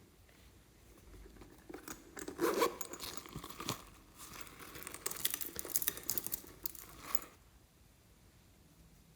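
Irregular crackling and crinkling from hands handling something, in a dense run of small clicks from about two seconds in until about seven seconds in.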